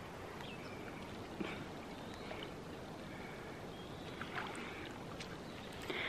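Faint sloshing and lapping of water in a natural hot spring pool as a person eases into it, with a few soft splashes.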